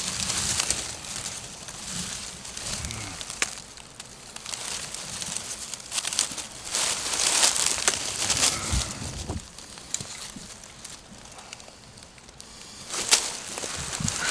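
Rustling and crackling of dry leaves with wind gusting, swelling and fading in waves, loudest about halfway through and again near the end, with a few light clicks.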